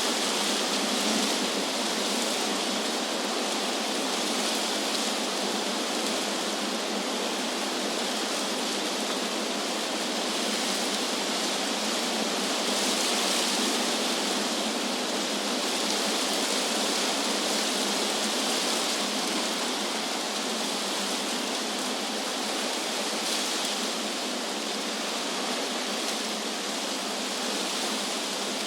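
Wind blowing through trees, a steady rustling hiss of leaves that swells and eases slightly.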